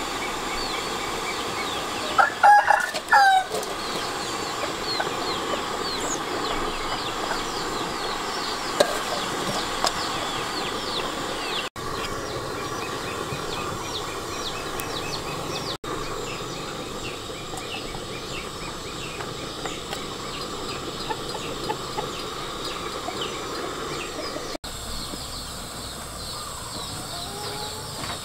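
A rooster crows once, about two seconds in, over steady outdoor ambience filled with rapid high chirping.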